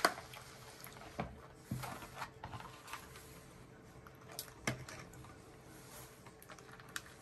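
Quiet handling noises at a table: a handful of soft taps and knocks, spaced irregularly, as gingerbread house pieces, a plastic tray and icing bags are picked up and set down.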